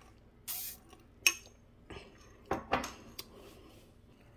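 Glassware and dishes being handled on a kitchen counter: a short scrape, a sharp ringing clink about a second in, then a few lighter knocks and rustles.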